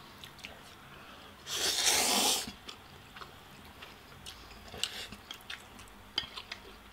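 A loud slurp of spicy instant noodles lasting about a second, followed by quieter chewing with small clicks and smacks.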